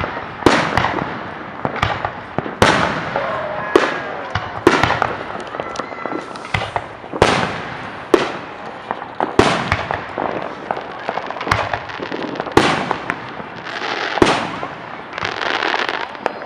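Aerial fireworks going off in quick succession, about one sharp bang a second, each echoing. A few bursts give a stretch of crackling, longest near the end.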